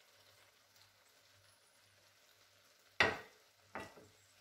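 Faint sizzling from a pan of seafood paella cooking on an electric hot plate. About three seconds in comes a sharp knock, followed by a lighter one.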